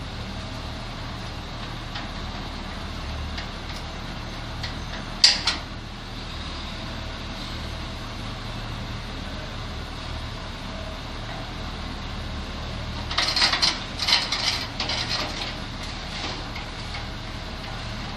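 Metal clinks of a screwdriver and fittings on a wall-mounted gas water heater's pipework: one sharp clank about five seconds in, and a run of irregular rattling clinks later, over a steady low hum.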